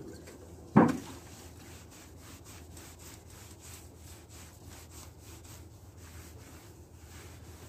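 A pad rubbed by hand back and forth on the oxidized fiberglass gelcoat of a sailboat hull, making quick, even scrubbing strokes of about three or four a second. A single sharp knock comes just under a second in.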